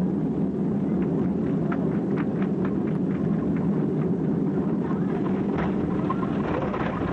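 Steady low rumble of cabin noise inside a Boeing 767 airliner coming in to land, with a few faint clicks and rattles one to three seconds in.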